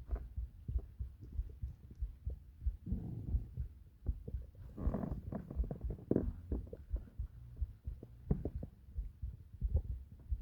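Human heartbeat thumping steadily and low, with stomach growls gurgling over it about three seconds in and again about five seconds in.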